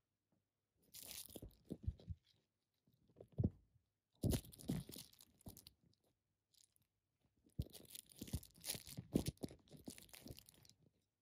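Rustling and scratching of fabric close to the microphone as a Bengal kitten scrabbles and paws about, in several bursts with soft thumps. The longest burst is in the second half.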